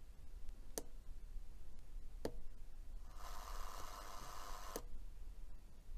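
Pushbutton switches on a DIY stereo FM radio kit clicking twice. Then about a second and a half of hiss comes from the radio through a small speaker as it tunes, cut off by another click.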